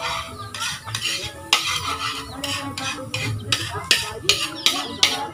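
Metal spatula scraping and stirring in a large wok, in quick, uneven strokes about two a second, with food frying in butter underneath.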